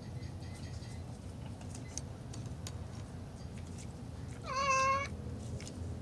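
A mule deer giving a single short bleat, a mewing call about half a second long, near the end.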